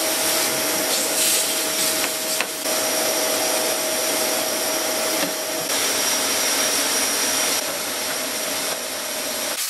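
Shop vacuum running with a steady whine while its crevice nozzle cleans dust from the drawer runners inside a wooden chest-of-drawers carcass. The tone shifts slightly a few times.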